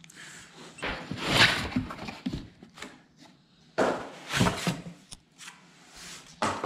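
Cardboard box and plastic wrapping rustling in a few separate bursts as a boxed welder and its coiled power cord are handled.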